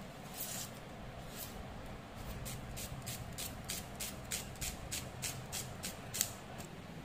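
Small papery crackles and clicks from the dry skin of a red onion being peeled and nicked against a blade, a quick run of them about three a second through the second half, the sharpest one near the end.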